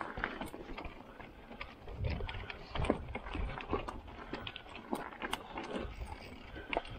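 Mountain bike rolling over rocky singletrack: tyres on loose stone, with irregular clicks, knocks and rattles from the bike, and a low rumble of wind or buffeting on the microphone about two to three and a half seconds in.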